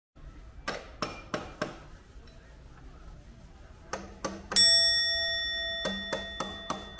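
Clock ticking about three times a second, with a single bright bell chime about four and a half seconds in that rings on for over a second.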